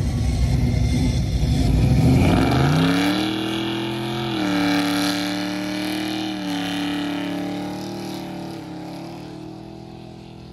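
1957 Chevrolet's engine revving hard in a burnout with the rear tyres spinning. It then pulls away, the engine pitch climbing and dropping three times at upshifts, growing fainter toward the end.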